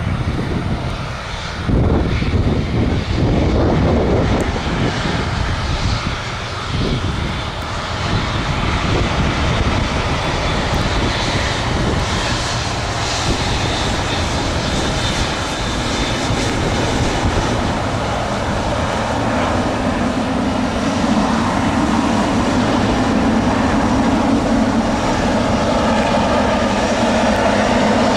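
Airliner engines running loudly close by. An uneven low rumble fills the first several seconds, and a steady low drone settles in about two-thirds of the way through.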